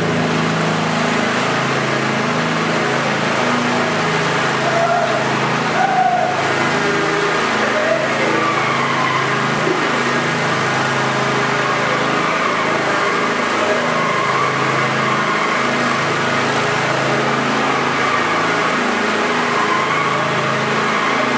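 A ride-on lawn mower's small petrol engine running steadily as it drives along towing a load.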